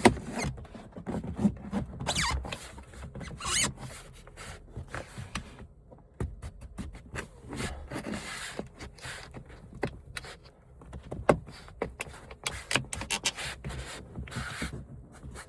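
Plastic retaining strip, sprayed with WD-40, being pushed and worked by hand into the channel of a pickup's rear sliding window: irregular rubbing and scraping with short squeaks and scattered clicks.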